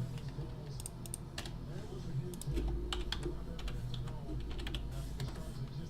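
Typing on a computer keyboard: irregular key clicks over a low steady hum.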